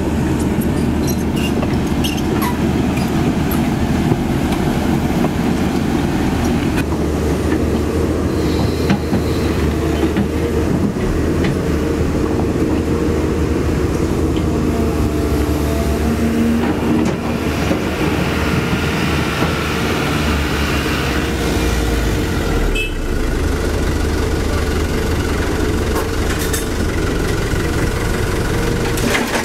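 CAT 320D2 hydraulic excavator's diesel engine running steadily under working load as the machine digs and swings, with scattered light clicks and scrapes. The low engine note grows heavier about three quarters of the way through.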